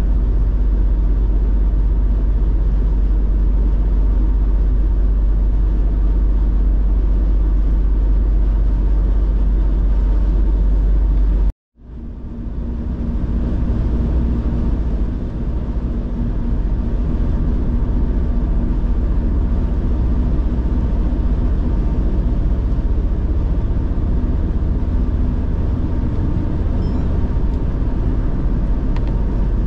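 Steady rumble and road noise of a car being driven at speed. It cuts out for a moment about twelve seconds in, then fades back up to the same steady noise.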